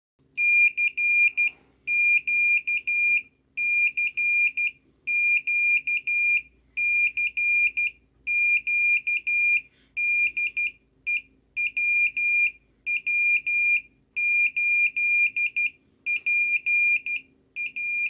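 Small breadboard buzzer driven by an Arduino Nano beeping out Morse code: a single high-pitched tone keyed on and off in dots and dashes, in groups of about a second with short gaps between them.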